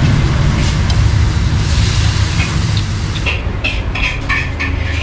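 Nasi goreng being stir-fried in a wok: a metal spatula stirring and scraping in the wok over a steady low rumble, with a run of sharp metal clinks in the second half.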